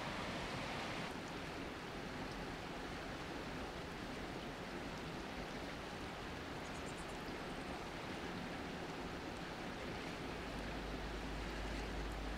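Steady rushing noise of a river in flood. After about ten seconds a steady deep rumble joins it.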